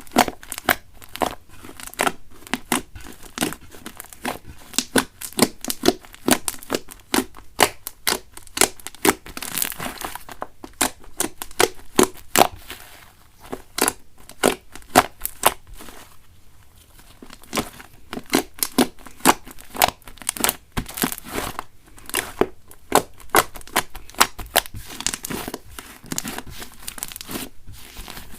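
Slime being squeezed and stretched by hand, giving a dense run of sticky pops and crackles, several a second, with a couple of short lulls.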